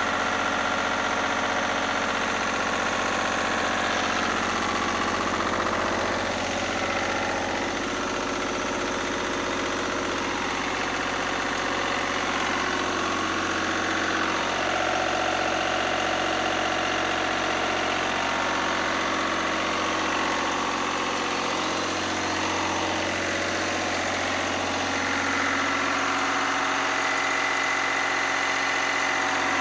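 Lister ST3 three-cylinder air-cooled diesel engine running steadily at constant speed, driving its generator.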